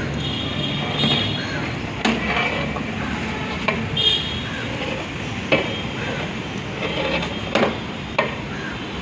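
Perforated metal ladle stirring and scooping cooked biryani rice in a large metal pot, with a few sharp knocks and scrapes as it strikes the pot's side.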